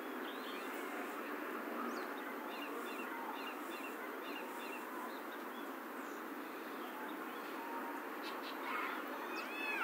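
Outdoor ambience: a steady background hiss with small birds chirping in short repeated notes through the middle. Right at the end, a drawn-out cat's call begins as the ginger cat closes in on the calico.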